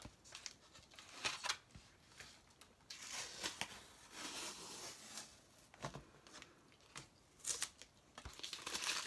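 Quiet rustling and scraping with scattered small clicks and taps from hands working with craft materials at a table. The longer rustling comes in two short stretches a little past the middle.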